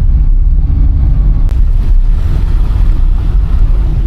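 Small Suzuki car driving on a rough road, heard from inside the cabin: a steady, loud rumble of engine and road noise, with a sharp click about one and a half seconds in.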